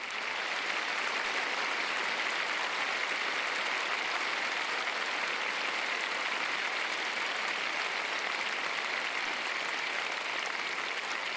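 Large concert audience applauding, a dense, even clapping that starts as the song ends and holds steady.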